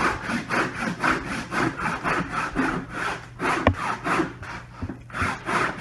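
Handsaw cutting through wood in quick back-and-forth strokes, about four a second, that slow and thin out near the end of the cut. There is a single sharp knock about three and a half seconds in.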